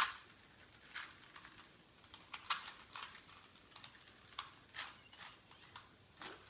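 Plastic Rubik's Cube being scrambled by hand: irregular sharp clicks and clacks as its faces are twisted, roughly two a second, the loudest at the very start.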